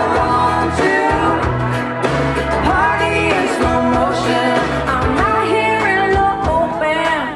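Country dance song with a lead vocal over a steady beat.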